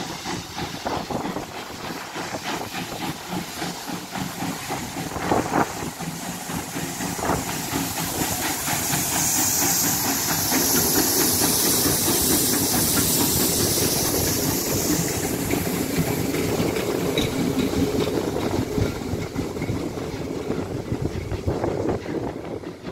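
Pt47-65 steam locomotive passing with its train. A loud steam hiss swells as it comes alongside about halfway through, over a clatter of wheels on the rails, then fades as it moves away.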